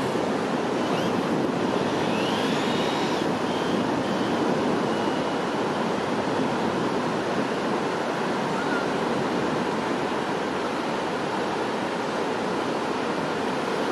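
Steady surf and wind noise on the microphone. Around two to three seconds in, a faint rising whine comes from the E-Maxx RC truck's brushless electric motor as the truck speeds away across the sand.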